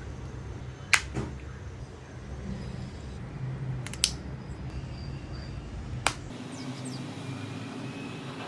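Three sharp clicks, about a second, four seconds and six seconds in, over a low steady background rumble.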